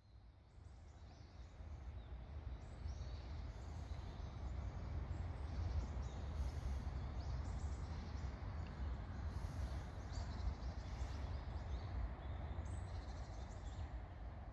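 Outdoor garden ambience: birds chirping over a steady low rumble, fading in at the start.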